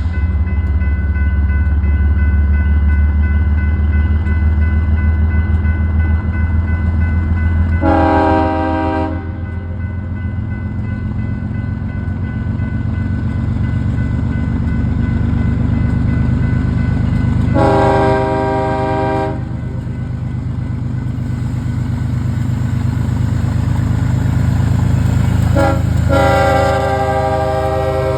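BNSF GE ES44DC and ES44C4 diesel locomotives running with a steady low rumble, leading an empty grain train. The multi-chime air horn sounds long, long, short, long: the grade crossing signal, with the last long blast still sounding at the end.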